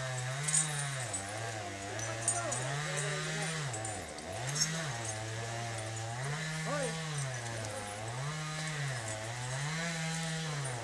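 Small petrol engine running and revving up and down over and over, about six times, its pitch stepping between two levels.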